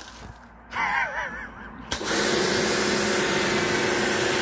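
Pressure washer paused, with a short wavering tone, then starting up again with a click about two seconds in and running steadily: a motor hum under the hiss of the spray.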